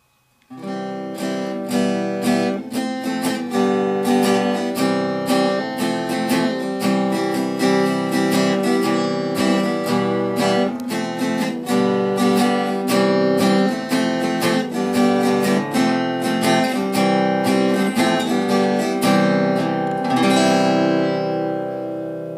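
Outro music: an acoustic guitar plays a steady run of picked and strummed chords, starting about half a second in. The last chord rings out and fades near the end.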